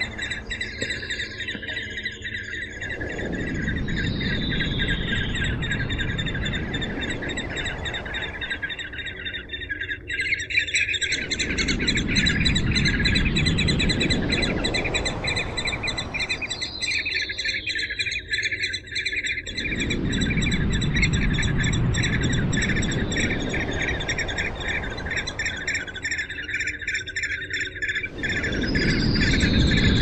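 Falconet calling: rapid, high-pitched chattering notes repeated without a break, over a rushing background noise that fades out briefly every seven or eight seconds.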